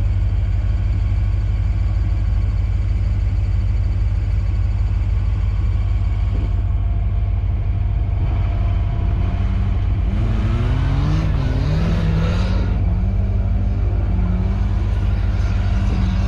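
An off-road 4x4's engine running under a heavy, steady low rumble. About halfway in, the engine note rises and falls as the throttle is worked, then holds steady.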